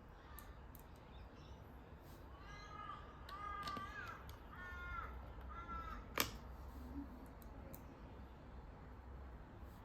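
A crow cawing four times in quick succession, each caw short and harsh, followed just after by a single sharp click.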